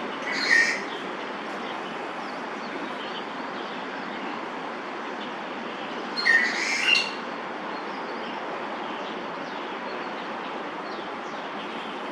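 Two short, squeaky bird calls, about half a second in and again around six seconds in, over a steady rushing background noise.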